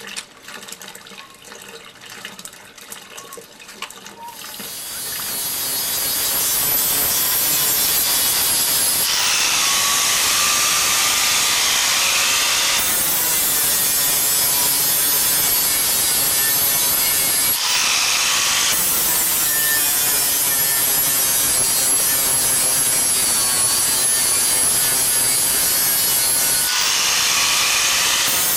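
Angle grinder starting up about four seconds in and then running steadily with a high whine as its disc polishes a stainless steel sheet-metal heart. In a few stretches the noise turns harsher and brighter as the disc works the metal.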